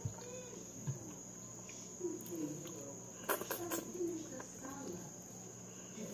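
Close-up mouth sounds of a person eating by hand: chewing and smacking, with a quick run of sharp clicks a little past three seconds in. A steady high-pitched insect trill, typical of a cricket, runs underneath.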